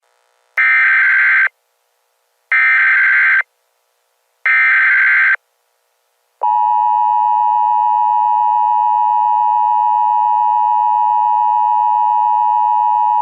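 Emergency Alert System tones. First the SAME digital header sounds as three short bursts of data noise, each just under a second long. Then, about six seconds in, the attention signal starts: the steady two-tone 853/960 Hz alarm, held without a break.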